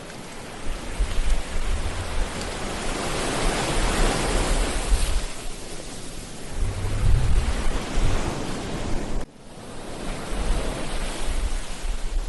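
Ocean surf washing onto a beach, waves swelling and breaking in a steady hiss, with low rumbling wind gusts on the microphone. The sound drops out abruptly for a moment about nine seconds in.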